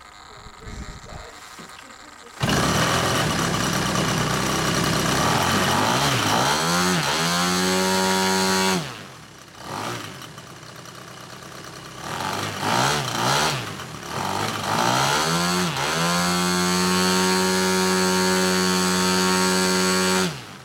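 Desert Aircraft DA-100L twin-cylinder two-stroke gas engine and propeller on a model aerobatic plane being run up: from idle the throttle opens suddenly about two seconds in and the engine holds high revs steadily, drops back to idle, is blipped a few times, then holds high revs again before dropping back at the end. The owner judges it to be running a little lean.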